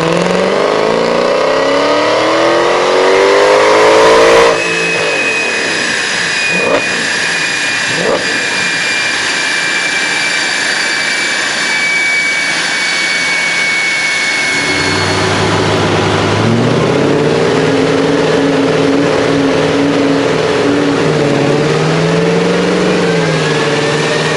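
Mercedes CLK63 AMG's V8 pulling at full throttle on a chassis dyno, its note rising steadily for about four and a half seconds and then cutting off sharply. A high steady whine follows as it coasts down, with two sharp pops. About ten seconds later the engine picks up again at a lower, steadier pitch, with a few gentle rises and falls near the end.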